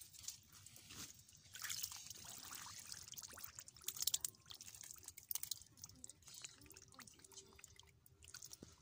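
Hands splashing and squelching in shallow muddy water, with scattered small splashes and drips that come in short clusters, the busiest about two and four seconds in.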